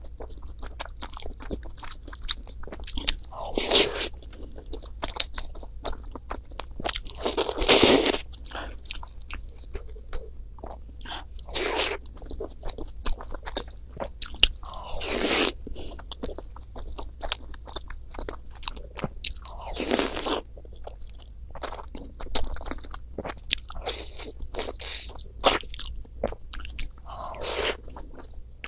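Close-miked eating of rice and Chinese noodles: steady chewing and biting with many small clicks, and about six louder bursts spread every few seconds.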